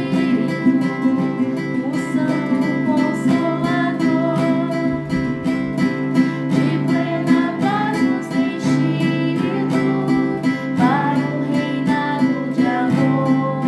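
Music: an acoustic guitar strummed in an even, steady rhythm.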